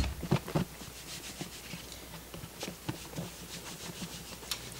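Lidded plastic food container being shaken by hand, with steak strips and flour tumbling and rubbing inside it to coat them. A sharp knock comes at the very start, then a run of irregular softer knocks and rustling.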